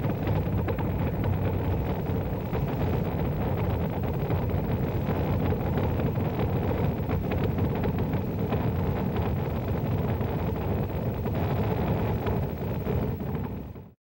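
Saturn V rocket's five F-1 first-stage engines during ascent: a steady, deep, crackling rumble that fades out quickly just before the end.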